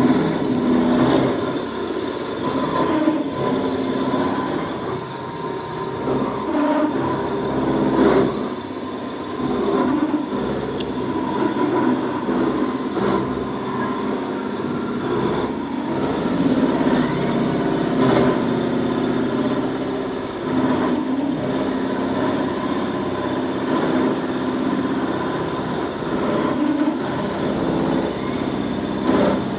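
Machinery running steadily, with a few steady tones over its noise and occasional faint knocks.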